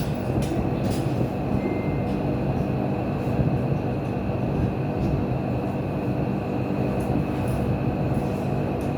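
Steady low mechanical drone of a running machine or engine, with a few faint clicks.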